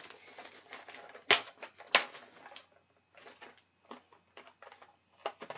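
Hard plastic packaging and tools being handled as the tools are worked out of a tight holder: scattered clicks and taps, with two sharp clacks about a second and a third and two seconds in.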